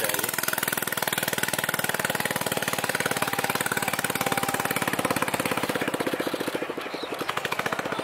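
Small boat's engine running with a rapid, even pulsing, heard from on board; it grows quieter and duller in the last second and a half.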